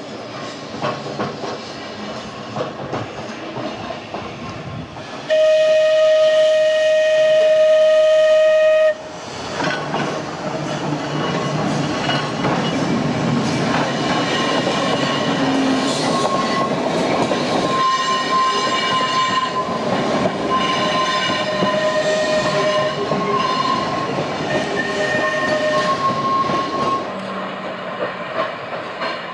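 Manx Electric Railway electric tramcar No. 9 with its trailer running past, sounding a steady warning horn for about three and a half seconds at the road crossing. It then rolls on with its wheels squealing on and off.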